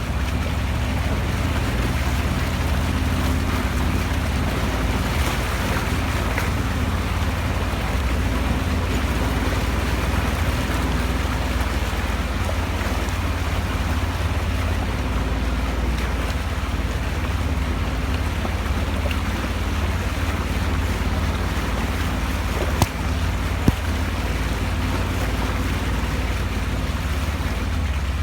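A vehicle engine running steadily with a low drone under rushing wind and road noise. Two brief sharp knocks come about three-quarters of the way through.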